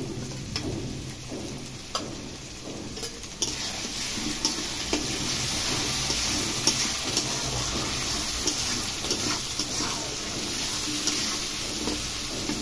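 New potatoes frying in oil in a kadai, the sizzle growing louder and denser from about three and a half seconds in as ground green and dried chilli paste goes into the hot oil. A metal spatula scrapes and clicks against the steel plate and the pan while stirring.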